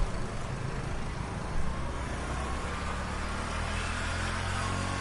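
Heavy street traffic with a motor vehicle engine running steadily close by. There is one short knock about a second and a half in.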